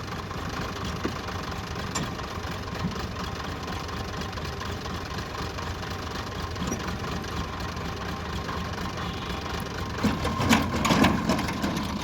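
Heavy diesel engine running steadily at idle with a knocking beat. About ten seconds in, louder irregular clattering and knocks join it.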